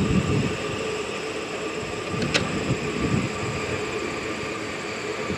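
Outdoor wind rumbling on the microphone in uneven gusts, over a steady faint hiss and thin high whine, with a single sharp click about two and a half seconds in.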